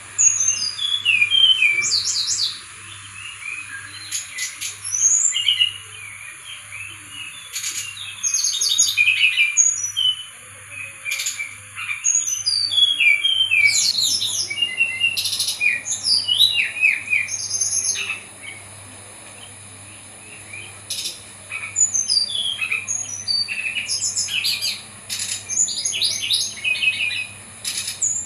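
Brown-chested jungle flycatcher singing a varied song of quick, high chirps and descending runs of notes, delivered in bursts of a few seconds with short pauses between them.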